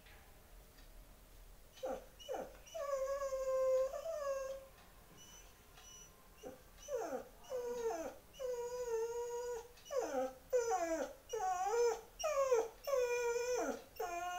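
A Dalmatian whining to be fed at dinner time. There is one long whine about three seconds in, then a string of shorter whines from about seven seconds on.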